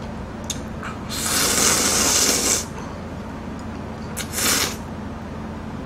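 A man slurping seafood ramen noodles: a long slurp of about a second and a half starting about a second in, then a shorter slurp a little past four seconds.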